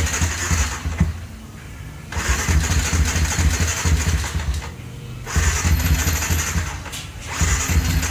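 Yamaha R15's single-cylinder engine, built up with a 65 mm big-bore kit, running in surges that rise and fall about every two to three seconds. A knock is still there, which the mechanic had blamed on the rocker arm striking a plate inside the head cover.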